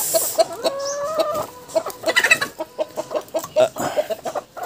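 A flock of chickens clucking in quick short calls, with one drawn-out call about a second in.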